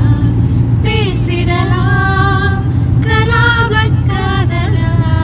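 A woman singing a song in phrases of long held notes with slides between them, over the steady low rumble of a moving car heard from inside the cabin.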